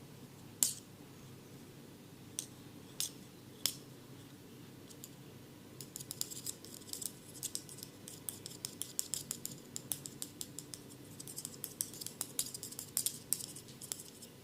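Crisp snipping clicks close to the ear. A few single clicks come first, then a fast, dense run of clicks from about six seconds in until near the end.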